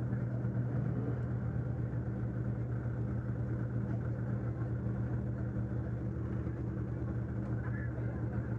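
Demolition derby car's engine running steadily at an even pitch, with no revving.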